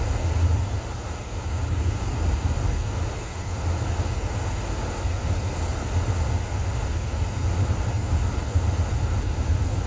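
Steady low rumble of a car driving on an open road, heard inside the cabin: tyre, road and engine noise.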